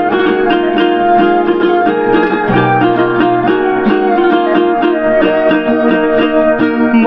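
Instrumental interlude of a Bengali folk song: a bamboo flute carries a sustained, gently bending melody over strummed acoustic guitar and ukulele, with a keyboard accompanying.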